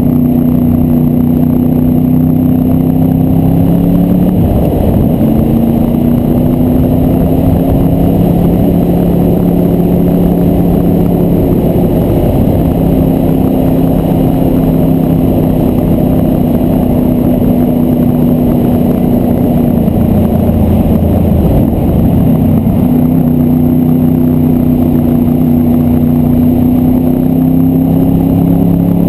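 Honda VFR Interceptor's V4 engine running at a steady cruise, heard through a helmet-mounted camera with wind rush. Its pitch shifts briefly about five seconds in and again around twenty-one seconds in.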